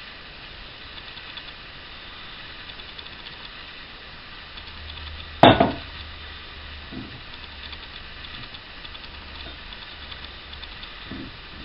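Wet cloth bag handled in an enamel pan of soaked orange peel: quiet rustling and fine crackling, with one sharp knock of hard kitchenware about five and a half seconds in and a couple of soft bumps later.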